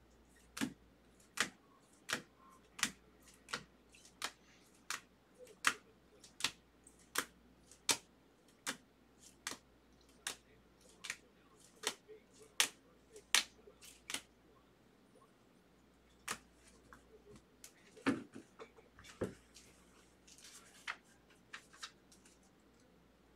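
Baseball trading cards being flipped one by one through a hand-held stack, a light click as each card is moved, at an even pace of about three every two seconds for some fourteen seconds. Then a pause and a few scattered clicks and handling sounds as the stack is set down.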